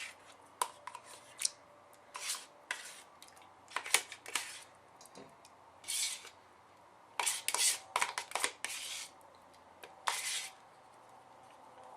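Spoon scraping sour cream out of its tub into a mixing bowl: a run of short irregular scrapes and light knocks of utensil against container.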